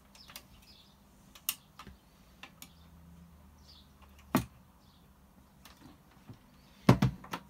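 Clicks and knocks from the controls of a KB Tunetime ORP10 record player as its knob is turned and the mechanism switched off, over a low steady hum. The loudest knocks come in a quick cluster near the end.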